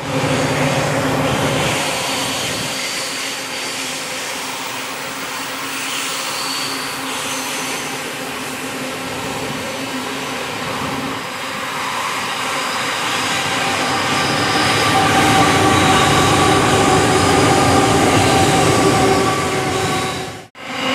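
Freight train rolling through a curve, with faint wheel squeal from the wagons. About halfway through, Qube QL-class diesel locomotives working under power come by, pushing (banking) a failed train; their engine note builds and is loudest near the end.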